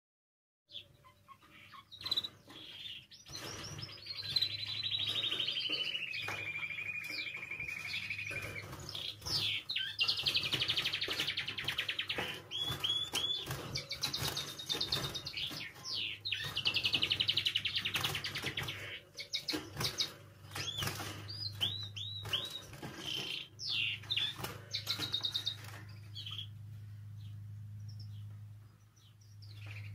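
Spanish timbrado canary singing: rolling trills and quick chirps, with a long trill that falls in pitch and then holds steady, starting about a second in. A steady low hum runs underneath.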